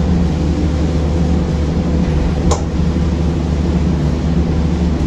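Interior ride noise of a 2006 Orion VII city bus under way: a steady low drone from the diesel engine and drivetrain with road noise. A single sharp click or rattle sounds about halfway through.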